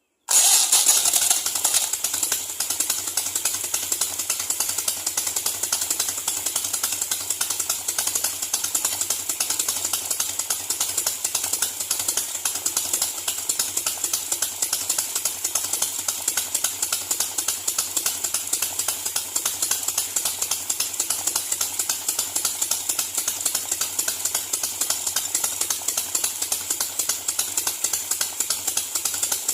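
Car engine fitted in a chopper motorcycle, running steadily with a rapid, pulsing exhaust beat that sounds like a Harley-Davidson. It starts abruptly just after the opening.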